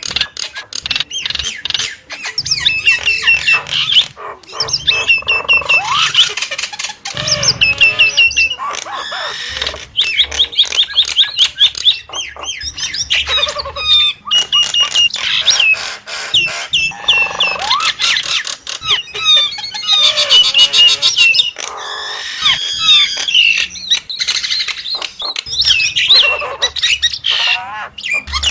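Nias hill myna calling loudly in rapid runs of high whistled and squawking notes, repeated in short phrases with brief pauses between them.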